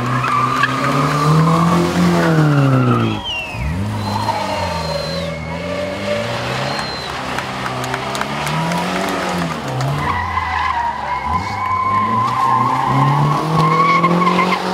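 Classic sports cars driving past one after another, engines revving up and dropping back as each accelerates by, with tyres squealing through the turn.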